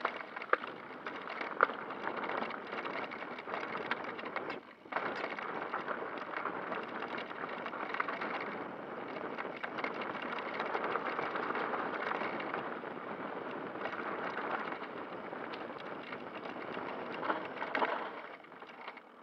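Electric mountain bike riding fast down a dirt trail: a steady crunch and rattle of tyres over dirt and gravel, with sharp clicks and knocks from bumps through the frame and suspension. It dips briefly about five seconds in and dies away just before the end as the ride slows.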